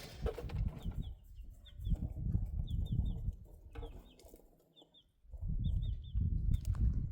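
Wind buffeting the microphone in gusts, with a small bird chirping in quick runs of two or three short high notes.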